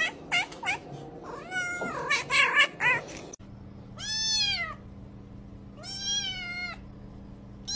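Several cats meowing, many short calls overlapping, until a sudden cut about three seconds in. Then a kitten mews three times, each a long cry that rises and falls, over a steady low hum; it is begging at a bowl of food.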